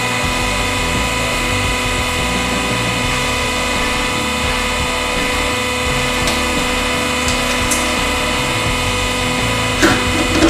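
A 100-ton hydraulic press's pump running steadily, a hum made of several even tones. There is one sharp crack near the end.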